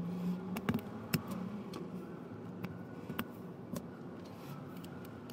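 Plastic LEGO Technic parts clicking as blue friction pins are pressed into a black Technic beam: a series of sharp, irregularly spaced clicks and knocks, the loudest a little over a second in.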